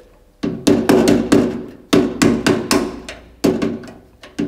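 A hammer tapping a steel patch plate into the door of a 1939 Citroën U23 truck, fitting it before it is welded in. About a dozen quick metallic blows in short runs, starting about half a second in, each ringing briefly.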